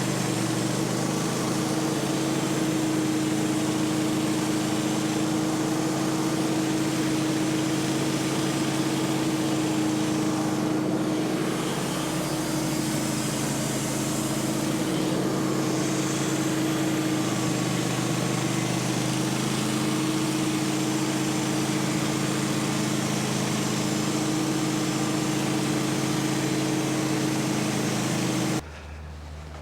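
Gasoline engine of a portable sawmill running steadily at speed while the blade saws another board off a pine log; the sound cuts off sharply near the end.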